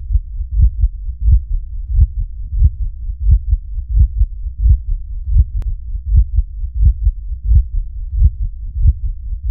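Low, muffled heartbeat-like thumping on the soundtrack, a steady double beat with a strong pulse about every two-thirds of a second.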